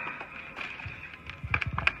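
Empty plastic soda bottle crackling and clicking as a dog paws and bites at it. There is a quick run of dull thumps near the end as the bottle is knocked against the bed, and a thin high tone is faintly heard in the first second.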